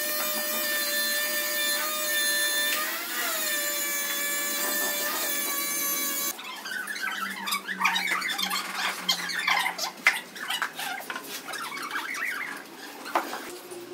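A steady mechanical whine of several pitches, dipping briefly twice, cuts off about six seconds in. It gives way to irregular scratchy swishes and clicks of a straw broom sweeping loose grout powder across a ceramic tile floor.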